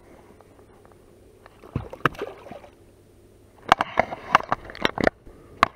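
Water splashing and sloshing against the side of a boat as a released northern pike kicks free. There is a short burst about two seconds in, then a quick run of sharp splashes and knocks near the end.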